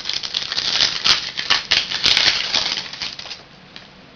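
Trading cards being handled and slid against one another: a dense run of quick rustles and clicks that stops about three and a half seconds in.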